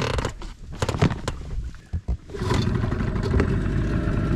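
A few knocks and clattering, then a small boat's outboard motor comes in about halfway through and runs steadily.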